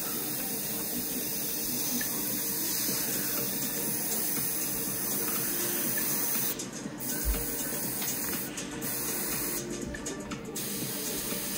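Airbrush spraying paint with a steady hiss that breaks off briefly three times in the second half.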